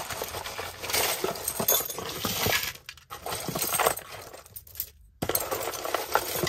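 A heap of costume jewelry (metal chains, bangles, beaded and pearl necklaces) clinking and rattling as it is set down and rummaged through by hand, in a few spells with brief pauses, the last starting sharply about five seconds in.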